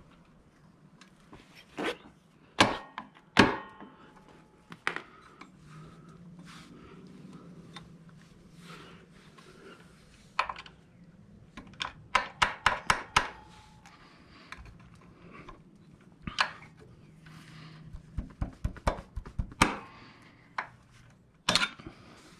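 Screwdriver and steel foot-peg parts clicking and knocking as the pivot pin is worked in against the peg's spring. The taps are scattered and irregular, a few ring briefly like metal, with a quick run of taps about halfway through.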